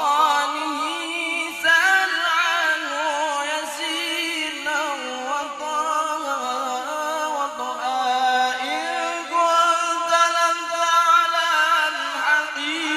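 A man sings a suluk, a high-pitched Arabic devotional chant, into a microphone. He holds long melismatic phrases with wavering, ornamented notes and no steady beat.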